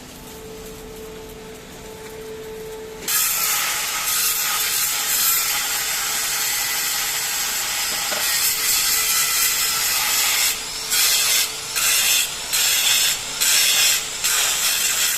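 A stick (SMAW) welding arc strikes suddenly about three seconds in and burns with a steady, loud crackling hiss. Near the end it breaks off briefly several times and restarts. Before the strike there is only a faint steady hum.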